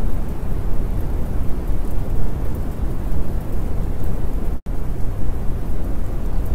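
Steady recorded rain-and-thunder ambience, a dense even hiss heaviest in the low end, cutting out completely for an instant about four and a half seconds in.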